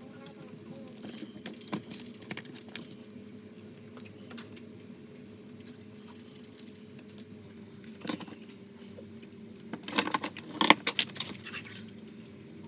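Small metal objects clinking and rattling in short clusters: a few near the start, a brief one about eight seconds in, and the loudest around ten to eleven seconds. A steady low hum runs underneath.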